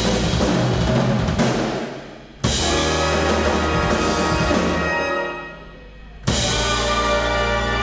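Band playing funk-jazz with drum kit. Twice the band stops and the sound dies away, then everyone comes back in together on a sudden loud hit.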